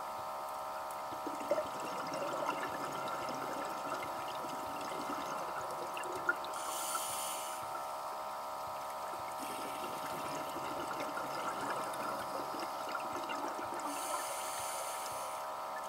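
Underwater sound of scuba divers breathing through regulators: bubbling from exhaled air, with bursts of bubble hiss at about seven seconds and again near the end, over a steady hum.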